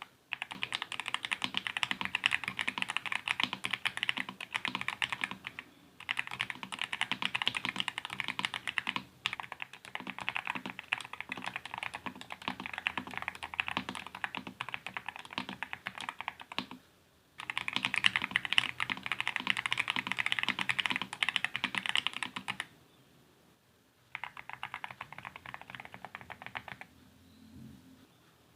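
Fast typing on a 60% mechanical keyboard with Akko linear switches, a polycarbonate plate, an ABS plastic case and cherry-profile double-shot keycaps: a dense stream of key clacks in long runs, broken by brief pauses. The typing turns softer and sparser in the last few seconds.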